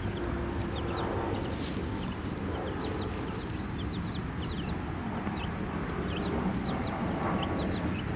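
Baby chicks peeping: many short, high, falling peeps, several a second, over a steady low rumble.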